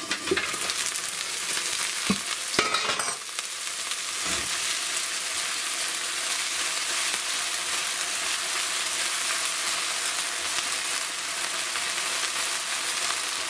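Onions frying in oil in a covered pan just opened, sizzling steadily. A few sharp knocks in the first three seconds as the lid comes off and a spoon stirs.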